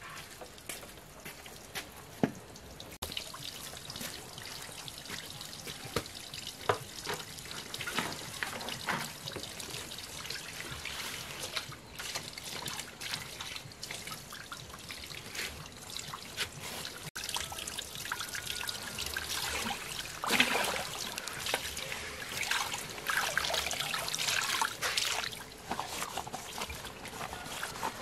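Water trickling from a hose into a plastic basin, with splashing as large leaves are swished and scrubbed in it. The splashing is busiest about two thirds of the way through.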